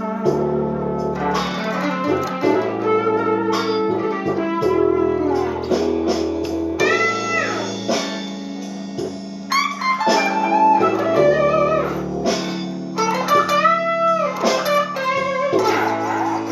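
Blues guitar music over a held bass line, with the lead guitar bending notes a little after halfway and again near the end.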